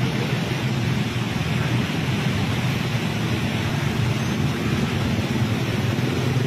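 Steady roar of fast-flowing muddy floodwater rushing past a concrete barrage pier.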